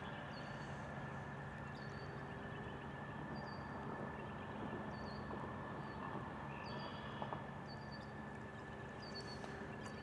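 Quiet outdoor ambience: a steady low hum, with short high bird chirps repeating about once a second and a brief call about seven seconds in.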